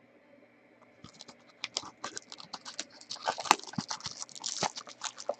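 Trading cards being handled and flipped through in the hands, making rapid crisp clicks and rustles. They start about a second in and grow busier from about three seconds.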